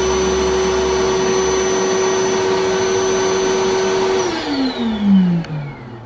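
Electric air-mattress pump running steadily with a constant whine, then switched off about four seconds in, its pitch sliding down as the motor spins down to a stop.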